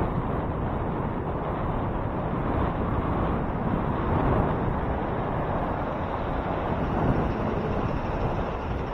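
Steady rushing wind and road noise, heard from a moving bicycle.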